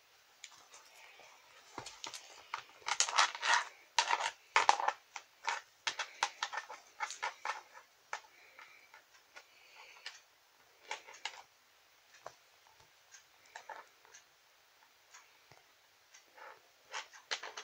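Irregular short clicks and rustles of toys being handled right at the microphone: a doll and a plush duck toy rubbed and pressed together. The clicks come thick and loud for a few seconds early in the stretch, then thin out into scattered taps.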